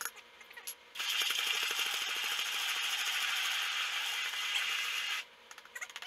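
Handheld immersion blender switched on about a second in, running steadily for about four seconds as it purees pineapple pieces in a stainless steel saucepan, then switched off. A few sharp clicks come before and after it.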